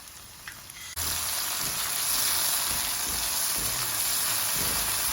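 Pork, onion and garlic sizzling in a hot frying pan; the sizzle starts abruptly about a second in, as soy sauce goes into the pan, and runs on steadily with a few low knocks of stirring.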